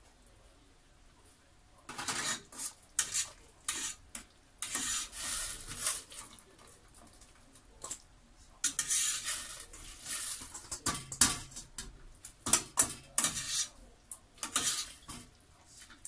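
A stainless mesh strainer clinking and scraping against a steel cooking pot and a steel mixing bowl as blanched onion and celery leaves are scooped out of the water, in irregular bursts of metal clatter starting about two seconds in.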